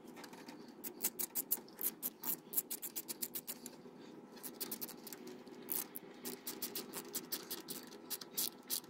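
Quarter-inch-drive ratchet with an extension and a 5/16-inch socket clicking in quick runs as it tightens a worm-gear hose clamp on a radiator hose. There are two runs of clicks, with a brief pause between them.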